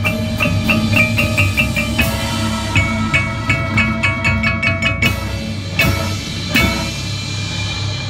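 Marching band front ensemble playing: marimbas and vibraphone strike quick, evenly repeated notes over low held tones, with a few loud accented crashes through the middle.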